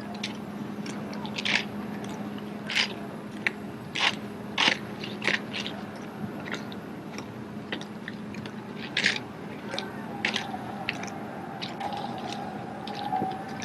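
Drill rifles being spun and caught by hand: a string of sharp, irregular clicks and slaps, about one a second, over a steady low hum.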